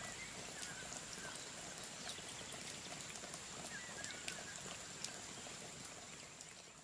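Faint outdoor ambience: an even hiss with a few short, faint bird calls near the start and about four seconds in.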